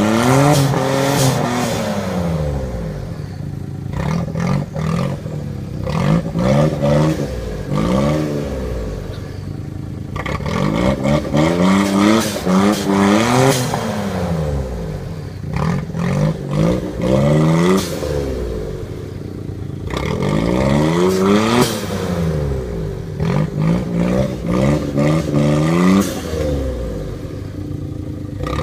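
Vehicle engine revving up and falling back again and again, every couple of seconds, with clattering knocks throughout.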